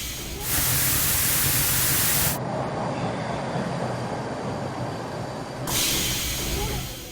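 Subway train running, a steady rumble and rattle, with a loud hiss coming in twice: from about half a second to two and a half seconds, and again for the last second and a half.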